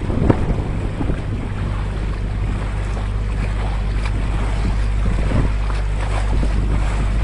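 Open motor tour boat under way: the steady low drone of its motor, with water churning along the hull and wind buffeting the microphone.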